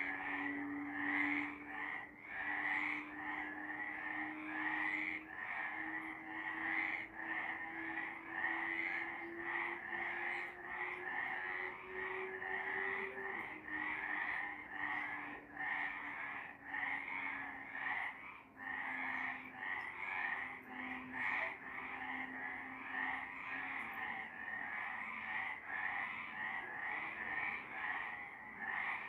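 A chorus of several frogs calling at night in a continuous, evenly pulsing rhythm of high croaks.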